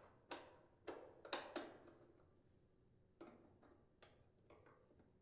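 Faint metal clicks and scrapes as the spring retaining clips are worked into place over a dryer drive motor's mounting, with a flathead screwdriver on the metal. Four sharp clicks come in the first two seconds, then fainter ones about three to five seconds in.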